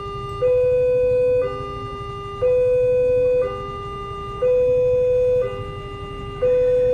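Electronic two-tone warning signal alternating steadily between a louder higher tone and a quieter lower tone, each held about a second, over a low rumble.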